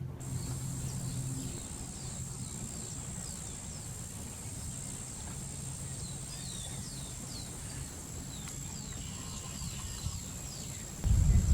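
A bird giving short, quick downward-slurred high call notes again and again, about two a second, over a steady high-pitched whine and a low rumble. A loud low rumble comes in near the end.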